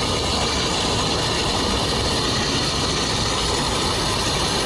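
Steady, dense mechanical rattling made of rapid clicks, like a fast ratchet.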